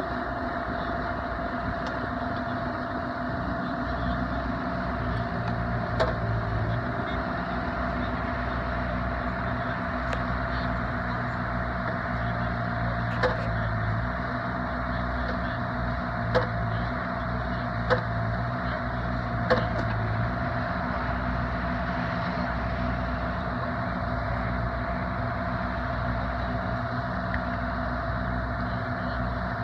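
Mini excavators' diesel engines running steadily as they dig, the engine note swelling in long stretches under load. About five sharp metallic knocks stand out over the drone through the middle.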